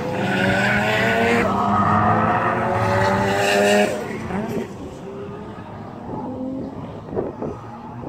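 A car engine revving hard with its pitch climbing steadily while the tyres squeal as the car slides through a cone course. About four seconds in the revs drop off abruptly, leaving quieter engine noise.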